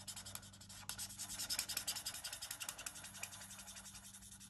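A Stampin' Blends alcohol marker's nib rubbing and scratching on cardstock in quick, short strokes, several a second, as the ink is coloured in and blended.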